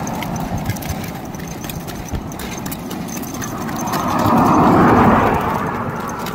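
A car passing on the paved road, its tyre and engine noise swelling and fading about four to five seconds in. Pony hooves and harness make light clicks throughout.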